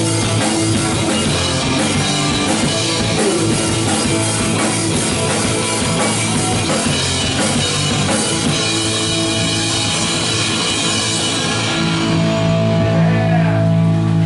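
Rock band playing: drum kit pounding under guitars. Near the end it settles into long held notes.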